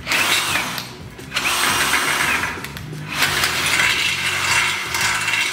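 Einhell 18 V brushless cordless drill in low gear (speed 1), driving a 13 mm high-speed-steel bit through 1/8-inch steel angle without a pilot hole. The bit cuts with a grinding, rasping sound in three stretches, with brief pauses about a second in and about three seconds in.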